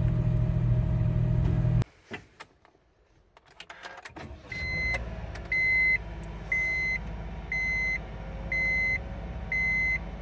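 A steady low hum cuts off about two seconds in; a few light clicks follow. Then a Honda N-ONE kei car's engine is started with the push button and settles into a steady idle, while a dashboard warning chime beeps once a second, six times.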